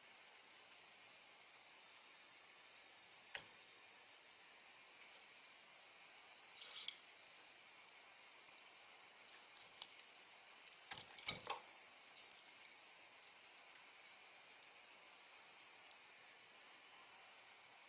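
Feeder crickets chirping steadily and high-pitched, with a few small clicks and taps over them; the loudest are a quick cluster about eleven seconds in.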